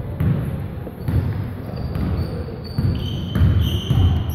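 A basketball bouncing on a gym floor during play, a run of dull thumps at an uneven pace, with a couple of short high squeaks near the end.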